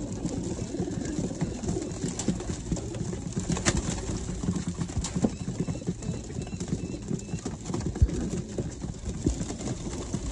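A flock of racing pigeons cooing while they peck grain, with many quick taps and scuffles of beaks and feet. A single louder thump about eight seconds in.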